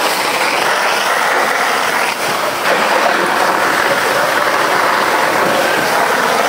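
Steady, loud rushing noise of firefighting: a fire engine pumping water through hose lines onto a house fire, with the water streams spraying.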